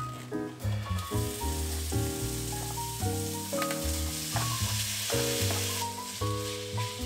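Minced beef and pork frying in hot olive oil in a wok, with a steady sizzle that grows stronger after the meat goes in, over light background music.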